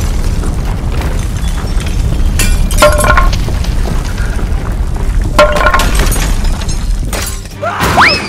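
Crash and rumble sound effects: a heavy low rumble with crashing, breaking hits, including two matching bursts a few seconds apart with a brief ringing tone. Near the end the rumble drops away and a rising cartoon whistle slides up.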